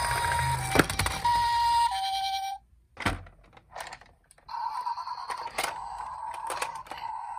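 Electronic two-tone ambulance siren from toy emergency vehicles, alternating high and low in the Japanese pee-poh pattern, which cuts off suddenly about two and a half seconds in. After a short pause with a few clicks, a second siren tone starts about four and a half seconds in, with sharp clicks and knocks throughout.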